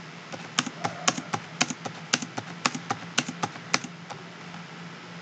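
Typing on a computer keyboard: an uneven run of key clicks for about four seconds that then stops, over a faint steady low hum.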